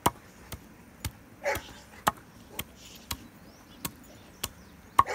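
Heavy chopper blade striking partly frozen chicken legs and thighs on a wooden board, a sharp chop about twice a second, cracking through the bones. A dog barks once about a second and a half in.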